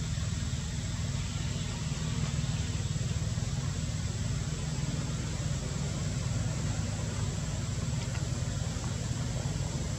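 Steady low mechanical drone like an idling engine, with an even hiss above it.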